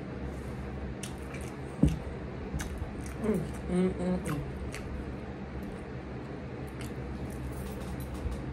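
Close-miked eating sounds: wet chewing and squishing of shrimp tacos, with small clicks from handling the food and a single thump just under two seconds in. A short hummed murmur comes in the middle.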